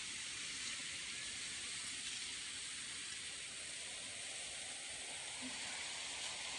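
Steady, even hiss of flowing river water.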